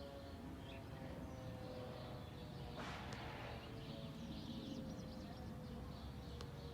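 Faint outdoor ambience: a distant tornado warning siren holding two steady tones, with small birds chirping and a brief rush of noise about three seconds in.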